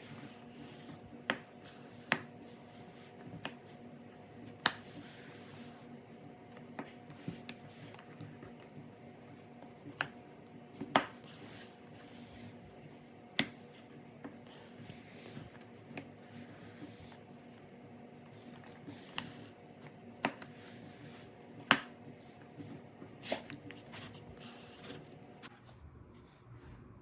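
Sliding and unlocking the parts of a hand-built puzzle box: irregular sharp clicks and knocks as pieces are moved and caught, with quiet handling in between. A faint steady hum sits underneath and stops near the end.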